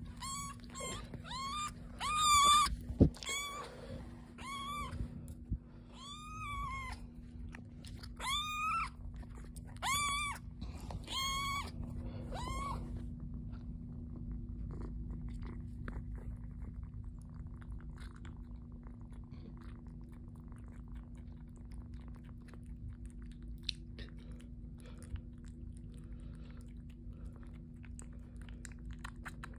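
Young kitten mewing over and over, about a dozen high-pitched cries in the first thirteen seconds, hungry for its bottle. After that come faint wet clicks and smacks of the kitten suckling on the nursing bottle, over a steady low hum.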